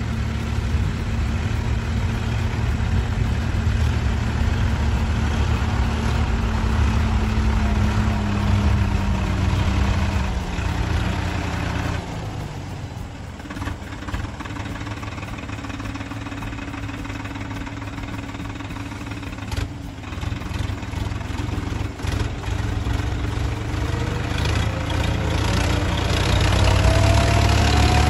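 Swaraj 963 FE tractor's diesel engine running under load as it works the soil. Its pitch sags about ten seconds in and it runs quieter for several seconds, then picks up again with a rising whine near the end.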